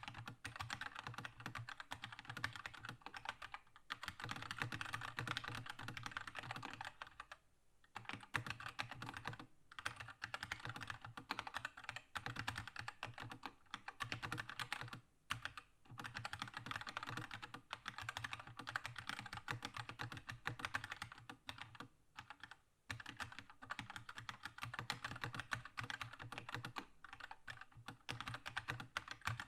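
Fast continuous typing on a Keychron K2 mechanical keyboard with linear red switches: a dense run of key clacks, broken by brief pauses about seven and a half, fifteen and twenty-two seconds in.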